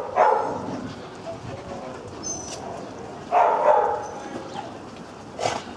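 Dog barking a few times: once at the start, a couple more about three and a half seconds in, and a short one near the end.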